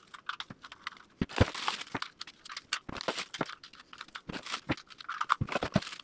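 Plastic pull tabs and packaging crinkling and tearing, mixed with many quick clicks and knocks of small plastic smoke alarm bodies being handled.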